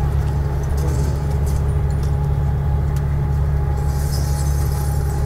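Scania V8 diesel truck engine running steadily at cruising speed, heard from inside the cab as an even, deep drone with a faint steady whine above it.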